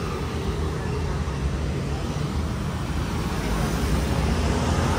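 Street traffic: motorcycles and a car passing close by, over a steady low rumble.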